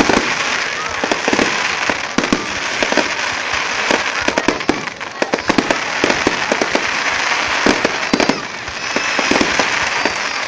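Fireworks display going off in rapid, irregular bangs and crackles, many reports overlapping one another.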